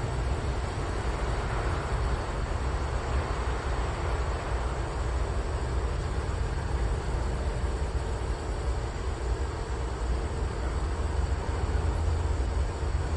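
Diesel locomotive running as it leads a train slowly through a rail yard, a steady low rumble.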